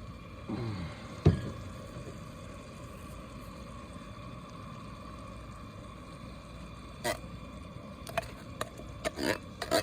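Cookware being handled at the pot: a sharp knock about a second in, then several light metallic clinks near the end, over a steady background hiss.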